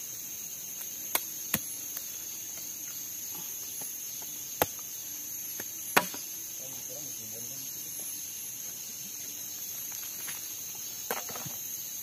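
A machete chopping into spiky durian husks: about five sharp, separate knocks, the loudest about six seconds in. Under them runs a steady high chirring of rainforest insects.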